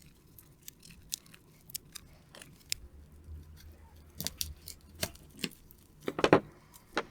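Scissors snipping, a scattered series of short sharp clicks and cuts at uneven intervals, cutting at a relay's bag. The loudest snips come about six seconds in.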